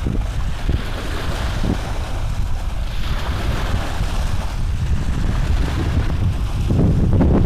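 Steady low rumbling noise, like wind or handling on the microphone, with a few soft rustles of cloth being handled; the rumble grows louder near the end.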